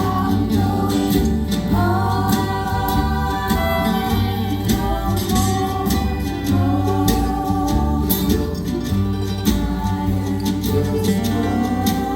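Live folk band performance: voices singing the melody over the band's accompanying instruments.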